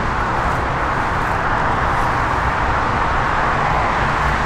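Steady roar of highway traffic: a continuous even rush of tyre and engine noise with no single vehicle standing out.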